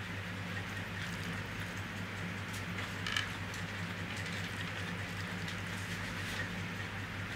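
Steady hum of an electric fan, with soft wet clicks and squelches from fingers mixing kadi and rice on a paper plate, and chewing.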